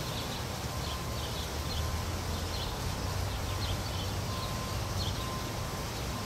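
Outdoor ambience: a steady low rumble with small birds chirping in short, high notes repeated every half second or so.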